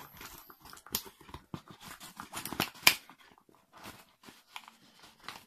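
A Makarov pistol being pushed and worked into a tight nylon holster pouch: fabric rubbing and scraping, with scattered sharp clicks of the metal pistol against the pouch. The loudest click comes about three seconds in.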